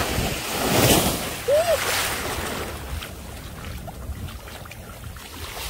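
Surf washing in over the sand at the water's edge, a rushing hiss that swells in the first couple of seconds and then eases to a lower wash. A brief vocal sound comes about a second and a half in.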